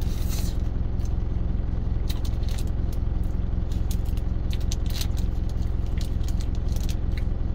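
Truck engine idling with a steady low hum, left running to cool down after high-speed driving. Over it, short wet mouth clicks and a paper wrapper crinkling as melted macaron filling is licked off it.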